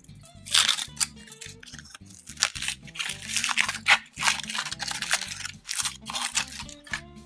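Foil wrapper crinkling and tearing in quick crackles as it is peeled off a chocolate surprise egg, over background music.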